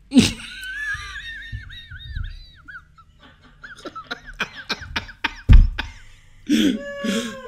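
A person's high-pitched, squealing, wheezing laughter in quick wavering pulses, breaking into short gasping breaths, with a loud bump about five seconds in.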